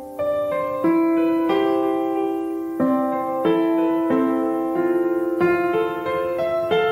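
Background music: a slow, gentle piano melody, a new note or chord struck every half second or so and left to ring out.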